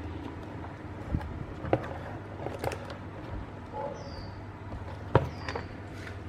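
Handling noise from an amplifier circuit board being turned over and set down on a workbench: a few light clicks and knocks, the loudest about five seconds in, over a steady low hum. Two faint high falling chirps come near the end.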